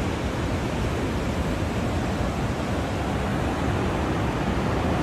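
Ocean surf: big waves breaking and washing in below a cliff, heard as a steady, even rush of noise.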